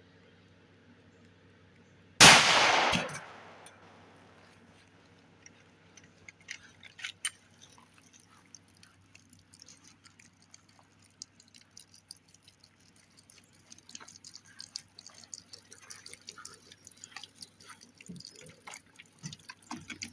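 A single 5.7x28mm shot from a PSA 5.7 Rock pistol about two seconds in, ringing out for about a second, followed by scattered small drips and ticks of water leaking from the shot water jugs.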